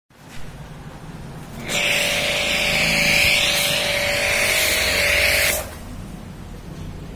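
Car-wash foam spray gun hissing loudly as it blasts wash foam onto a car. The spray starts about two seconds in, runs for about four seconds with a steady whine inside the hiss, and cuts off sharply. A low hum can be heard before and after it.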